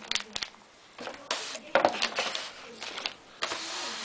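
Packaging being handled: a few light clicks, then a burst of rustling about a second in, and a steady scraping near the end as the polystyrene packing insert is moved.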